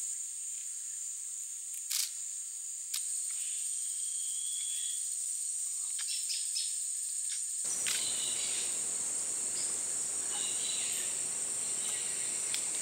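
Rainforest insect chorus, a steady high-pitched buzz, with two sharp clicks about two and three seconds in and a few short bird-like chirps. About two-thirds of the way through, a low rushing noise joins it.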